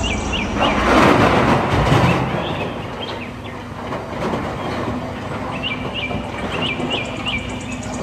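Large wheel loader's diesel engine running under load, with the rushing rumble of soil pouring from its bucket into a dump truck, loudest from about one to two seconds in.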